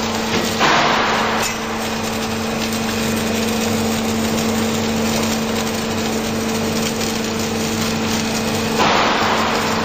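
H-beam welding machine running with a steady electrical hum under a constant hiss, with louder bursts of hissing about half a second in and again near the end.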